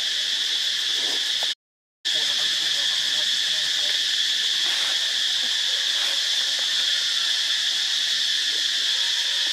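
Steady, high-pitched insect chorus, unchanging throughout, that cuts out completely for about half a second about a second and a half in.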